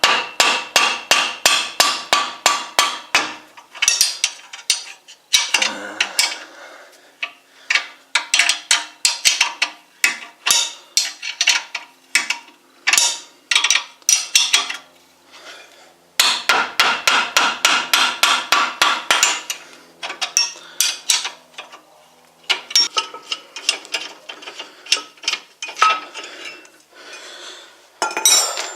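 Hammer tapping repeatedly on a spanner to break loose the tight caliper mounting bracket bolts on a car's front brake. The strikes come in fast runs of about five a second with a metallic ring, broken by short pauses.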